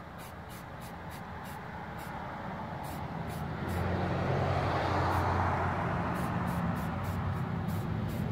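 A motor vehicle passing on the road, its engine drone and tyre noise swelling to a peak about four to five seconds in and easing only slightly after. Short hisses of an aerosol spray-paint can come and go over it.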